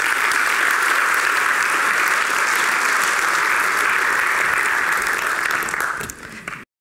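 Audience applauding steadily, thinning out near the end and then cutting off suddenly.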